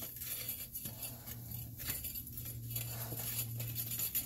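Light metallic clinks and scrapes as a crucible in a steel lifting rig is lowered back into a glowing metal-melting furnace, over the steady hum and hiss of the furnace's burner blower.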